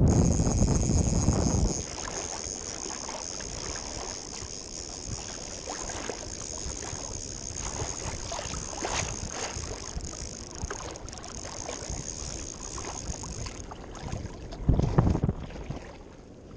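Wind buffeting the microphone in gusts, strongly in the first two seconds and again near the end, with small wind-driven waves lapping and splashing around a wading angler in between.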